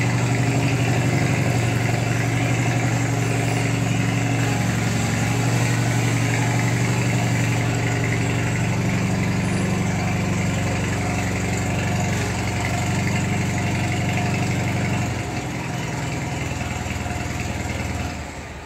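HT20 garden tractor engine running steadily on its first cold start after long storage. It quietens a little about fifteen seconds in, then stops near the end.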